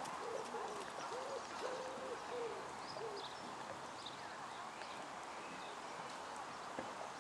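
Low cooing, hooting bird calls: a run of short, even notes that stops about three seconds in, followed by a few faint high chirps.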